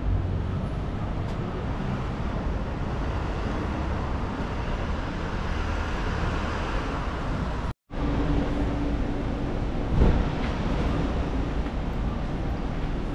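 City street ambience: a steady wash of traffic noise with a low rumble. The sound cuts out for a moment about eight seconds in, and a single thump stands out about two seconds later.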